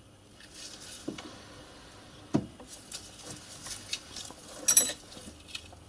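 Faint metal-on-metal clicks and knocks as a Myford lathe's tailstock is brought up and the bolt in its chuck is set against a small die holder on the workpiece. There are a couple of sharp clicks, then a brighter metallic clink near the end.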